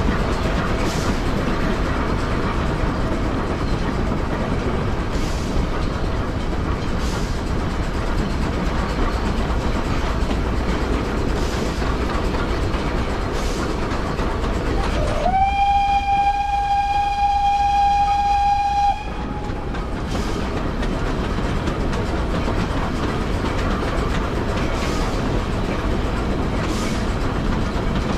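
Steam train of the Setesdalsbanen, hauled by steam locomotive Lok 6, running steadily, with occasional clicks from the rails. About halfway through, the locomotive's steam whistle gives one steady blast of about three and a half seconds.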